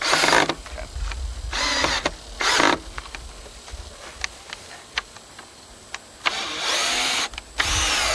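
Cordless drill boring into pallet wood in five short bursts of its motor, the last two about a second long, with light clicks between bursts.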